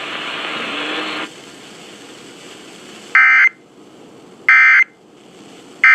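Emergency Alert System end-of-message data code: three short buzzy bursts of digital data tones, each about a third of a second, about a second and a half apart, over radio hiss. They mark the end of the alert.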